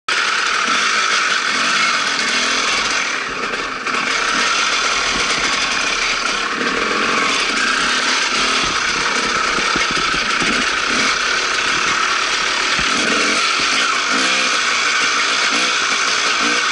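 Dirt bike engine running under way, its pitch rising and falling as the throttle is worked, easing off briefly about three and a half seconds in.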